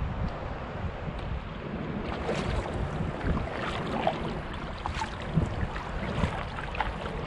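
Water lapping and splashing against a moving sea kayak's hull, with wind rumbling on the microphone. From about two seconds in, small splashes come thick and fast.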